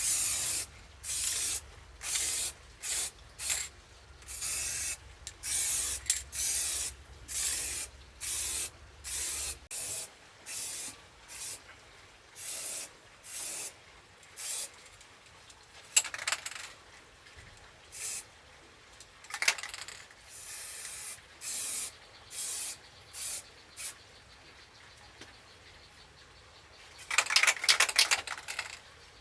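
Repeated short rasping strokes, one or two a second, each a brief hiss. A few sharper, louder strokes fall around the middle, and a quick cluster of them comes near the end.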